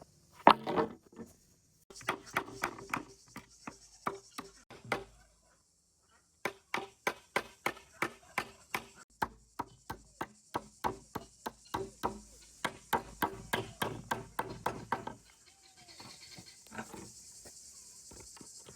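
Repeated sharp strikes in runs, about three a second, each with a short ringing note, as when chopping on a board or hammering wood. A steady high hiss, like insects, runs underneath.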